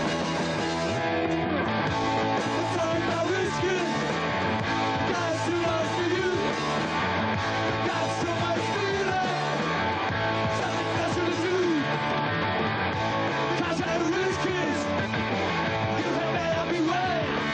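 Punk/new wave rock band playing live with electric guitars, bass and drums in a wordless passage, with a lead line bending notes up and down over the steady beat.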